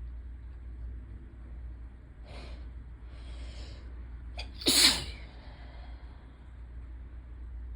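A person sneezing from ragweed allergy: two sharp in-breaths as the sneeze builds, a short catch, then one loud sneeze about five seconds in.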